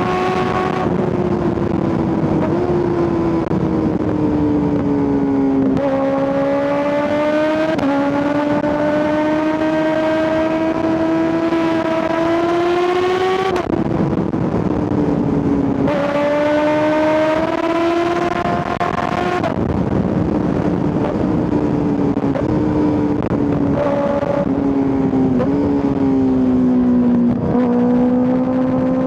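A Kawasaki ZX-6R's 636 cc inline-four motorcycle engine, heard from the rider's position. It pulls hard with climbing pitch twice, easing off sharply after each pull, then runs at lower revs with a few quick steps in pitch as the rider shifts. Wind rush is heard throughout.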